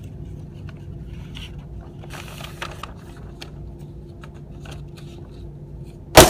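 Faint handling clicks and rustles over a steady low hum, then a single Glock 19 pistol shot near the end, with a short echoing tail.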